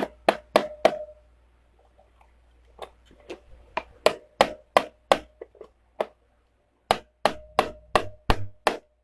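Hammer blows in quick runs of about three a second, each knock ringing briefly, with a pause of about a second and a half early on before the hammering starts again.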